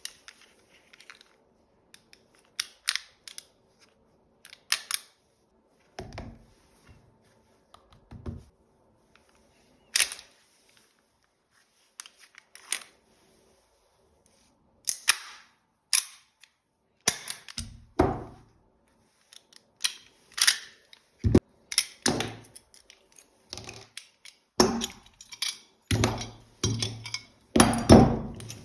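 Toy Beretta pistol being worked by hand: an irregular string of sharp mechanical clicks and clacks, like the slide and parts being moved and snapped, sparse at first and busier and louder in the second half.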